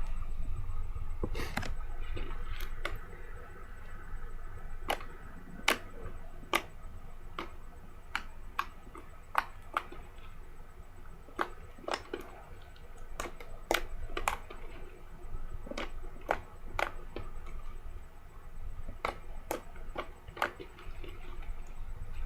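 Foam-bead slime being squeezed and pressed by hand, giving irregular crisp pops and clicks, about one or two a second.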